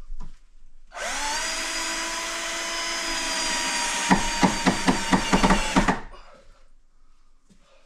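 Cordless drill-driver driving a screw into a door frame: the motor spins up about a second in and runs steadily for about five seconds, with a fast run of sharp clicks, about five a second, in the last two seconds before it stops.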